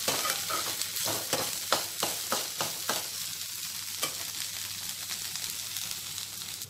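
Moringa (drumstick) leaves frying in oil in a pan with a steady sizzle, while a spatula stirs them and scrapes against the pan. There are several quick knocks in the first three seconds and fewer after.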